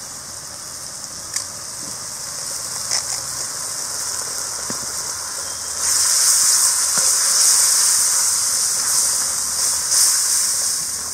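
Onions, tomato and ground masala sizzling in a steel wok, growing louder about six seconds in as the mixture is stirred with a ladle. A couple of light clicks come from a spoon against a glass spice jar.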